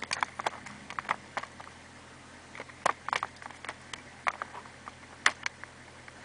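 Irregular sharp clicks and knocks inside a truck cab, about a dozen of them, the loudest near three and five seconds in.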